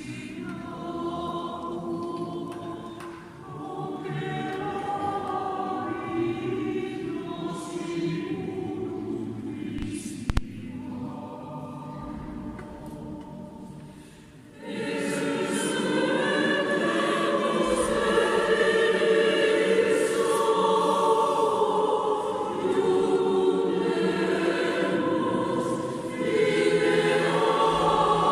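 A group of voices singing together in chorus, sustained notes over many voices. A single sharp click comes about a third of the way in, and the singing swells louder from about halfway.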